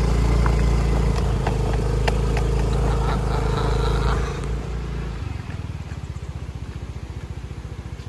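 A motor vehicle's engine running steadily, with a few light clicks. About five seconds in, it drops to a quieter, rapid, even pulsing, like an idle, that fades away.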